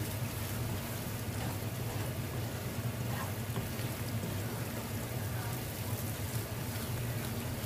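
Sautéed shrimp paste sizzling and bubbling steadily in a frying pan while it is stirred with a wooden spatula, over a steady low hum.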